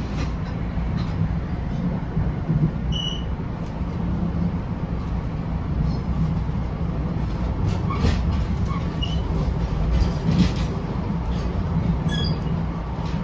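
NJ Transit Comet II/IV passenger coach running at speed, heard from inside the cabin as a steady rumble, with a few brief high squeaks and clicks scattered through it.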